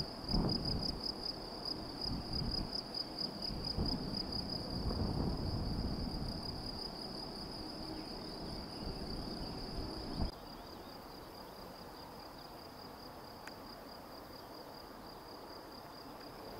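Crickets or bush-crickets in the grass, a steady fast-pulsing high trill. For the first ten seconds a gusty low rumble lies under it, then it stops abruptly and the trill goes on alone over faint hiss.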